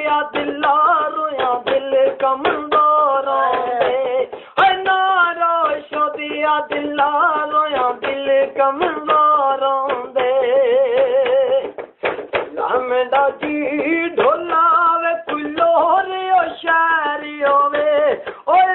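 A man singing a Punjabi folk dhola in long, wavering held notes, close to the microphone in a small room, with brief breaths about four and twelve seconds in.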